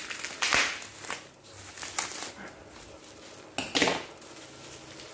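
Plastic bubble wrap crinkling and crackling as it is cut with scissors and pulled apart, in several short bursts, the loudest a little under four seconds in.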